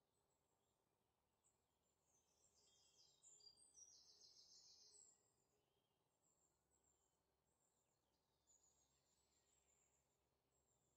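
Near silence, with faint high chirping from about two to five seconds in.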